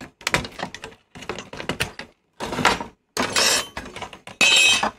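Handling noise from a VCR circuit board being worked out of its slot and a plastic insulating sheet being handled: a run of clicks and knocks, with two longer crackling scrapes in the second half, the last the loudest.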